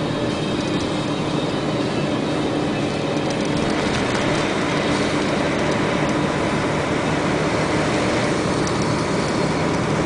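Steady running noise of a vehicle driving along a road, heard from inside the cabin: a low engine hum under even tyre and road noise.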